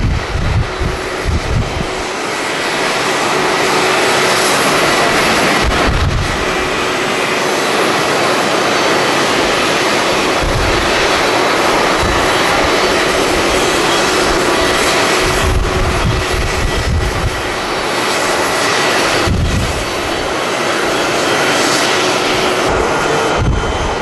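Jet engines of a Japan Airlines Boeing 737-800 running at high thrust on its takeoff roll: a loud, steady roar. Strong wind buffets the microphone in irregular low rumbles throughout.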